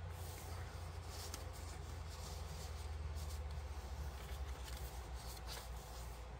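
Paper rustling and soft scraping as hands slide a card tag into a paper pocket and turn a page of a thick handmade paper journal, over a low steady hum.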